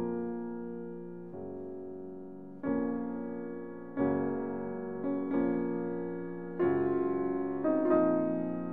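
Background piano music: slow chords, each struck with a sharp attack and left to fade before the next.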